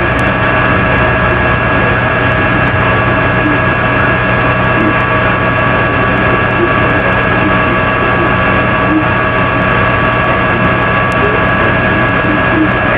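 Steady, loud hum and hiss with several constant high tones over it, unchanging throughout, with no distinct barks.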